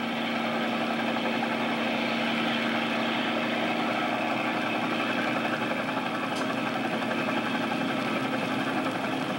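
A machine running steadily, with a constant low hum and an even mechanical whirr that does not change. A faint click comes a little over six seconds in.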